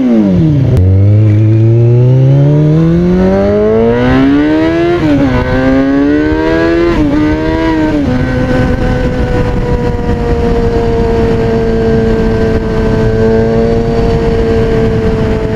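2003 Kawasaki ZX-6R's inline-four engine through an aftermarket MotoGP-style exhaust, loud. The revs climb steadily for a few seconds, dip and rise again twice, then hold at a steady high pitch.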